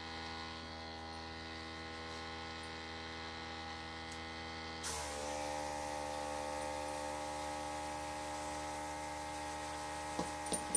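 Small airbrush compressor running with a steady hum; about halfway through the airbrush is triggered and a hiss of spraying air and paint joins, while the hum shifts in pitch under the load. A few light clicks near the end.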